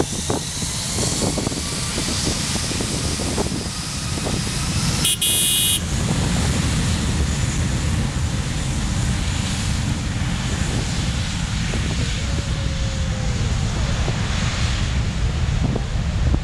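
Airbus A320's IAE V2500 jet engines running up for takeoff: a heavy, steady roar with a faint rising whine near the start, and jet blast buffeting the microphone. A brief distorted burst comes about five seconds in.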